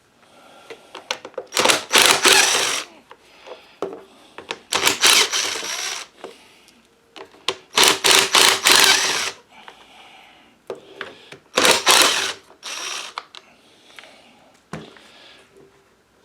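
Small cordless impact driver with a T27 bit hammering out screws in about four short runs of rapid clicking, each about a second long, with handling noise of parts between them.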